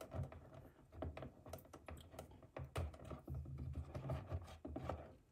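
Faint, irregular clicking and tapping of small parts handled by fingers while fitting a light bar mount onto a 1/18-scale RC truck's roof rack.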